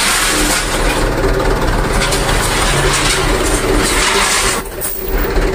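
Mitsubishi Canter truck's diesel engine running as the truck pulls slowly forward, with a steady rushing noise over it that drops briefly near the end.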